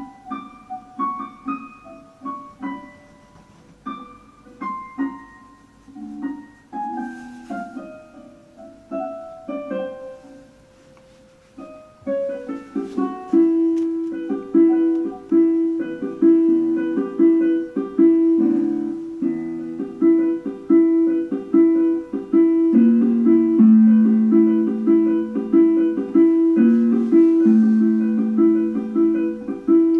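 Piano music: sparse, separate notes for the first twelve seconds or so, then a louder, busier repeating figure over a low line of alternating notes.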